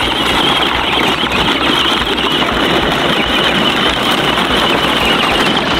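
Plastic wheels of a battery-powered ride-on toy tractor and the toy tank it tows crunching and rolling over gravel, with a thin steady whine from the tractor's electric drive motor.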